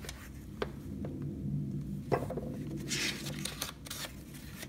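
Paper rustling as fingers handle and lift the thin pages of a small A6 Canson sketchbook, with two light clicks in the first half and short rustles about three and four seconds in.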